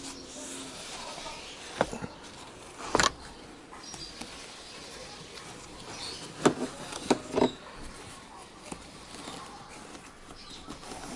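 Handling noise from a plastic mesh seat backrest cushion being fitted against a car seat: scattered clicks and knocks over a low hiss. There are two knocks about two seconds in, a louder one near three seconds, and three more between six and seven and a half seconds.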